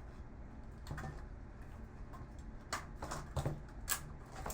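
Scattered short clicks and light knocks of plastic and metal parts being handled as a computer monitor is pulled apart, a cluster of them in the second half.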